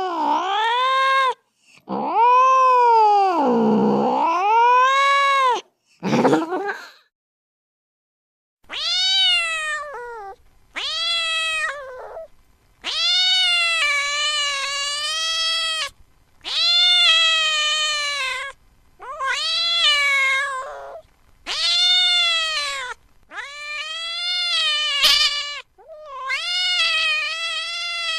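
Cat caterwauling in anger: a run of about ten long, drawn-out yowls, each wavering up and down in pitch, with short pauses between them.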